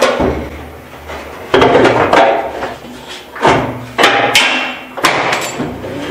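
A metal car gas tank knocking and thudding against the underside of the car as it is lifted and shifted into place: a series of loud, irregular knocks, each ringing briefly.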